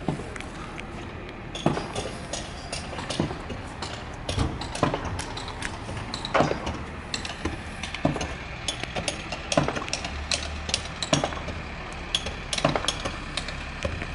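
Irregular knocks and clicks from someone moving about on a pontoon boat's carpeted deck, with a heavier thump about every second and a half.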